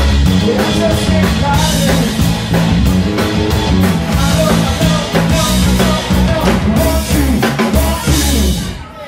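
Live rock band playing: drum kit, bass, keyboard and guitar, with a male singer. The band stops together on a final hit about half a second before the end.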